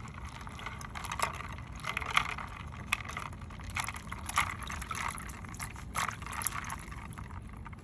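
Boiled pork intestines being turned by hand and chopsticks in a bowl of ice water: water sloshing and splashing, with ice cubes knocking together in quick, irregular bouts.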